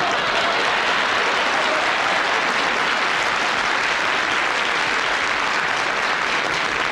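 A studio audience applauding steadily in response to a comedy gag.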